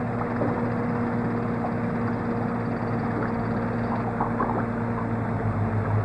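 Steady low mechanical hum from machinery running, with a faint crackle and scattered small ticks over it.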